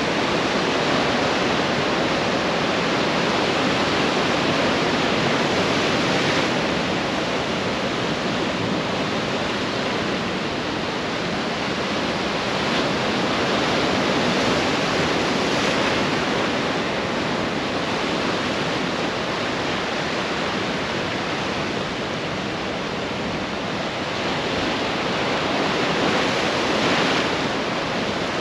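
Ocean surf: a steady wash of breaking waves, swelling and easing about every ten seconds.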